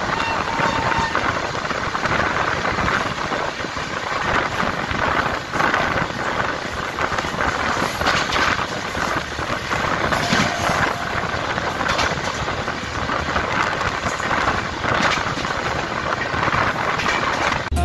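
Steady noise of a passenger train's wheels running along the rails at speed, heard from inside the coach, with an occasional sharp click.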